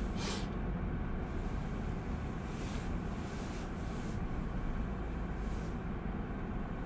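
Car running and moving, heard from inside the cabin: a steady low rumble of engine and road noise, with a few faint brief rustles.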